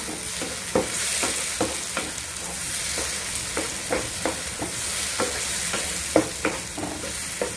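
Chopped tomato and onion sizzling in hot oil in a frying pan while a wooden spatula stirs them, knocking and scraping against the pan two or three times a second, with one louder knock about six seconds in.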